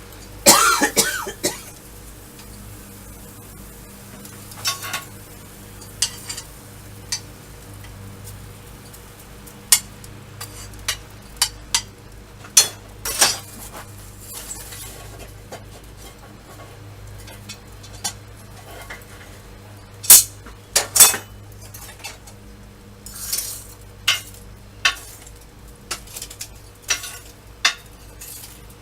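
Irregular metallic clinks and knocks of steel tools and stock being handled, scattered a few seconds apart with a loud cluster about twenty seconds in, over a steady low hum.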